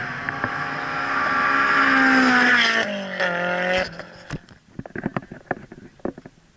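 A drift car's engine held at high revs grows louder as it comes down the straight. Its pitch drops about three seconds in as it goes by, and the engine sound cuts off about a second later. Irregular clicks and knocks from the camera being handled follow.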